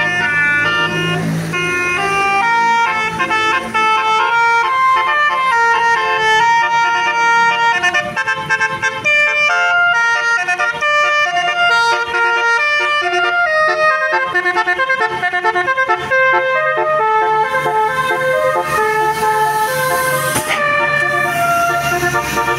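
Bus musical air horn ('telolet') playing a long melody of stepped, sustained notes, several sounding together like a chord.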